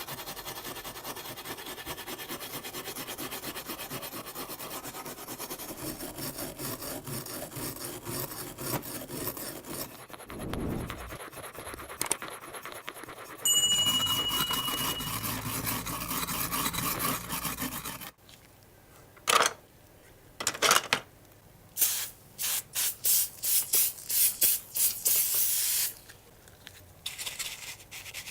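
Abrasive hand work on a diecast model car: a steady, rapid rubbing and scraping at first, and from about two-thirds of the way in a run of short, louder strokes.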